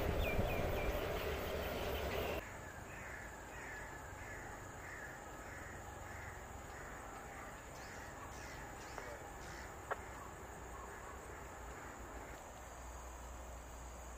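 A train rumbling in the distance for the first couple of seconds, then a bird calling over and over, about two short falling calls a second. A single sharp click sounds about ten seconds in.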